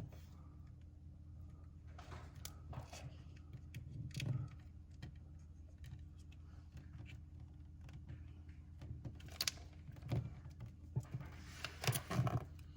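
Faint rustling and a few light taps as a peel-and-stick backsplash tile is handled and pressed onto the wall, over a low steady hum.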